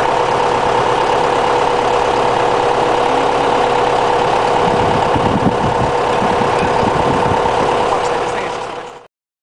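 Diesel farm tractor engine idling steadily with a constant droning note; the sound cuts off abruptly near the end.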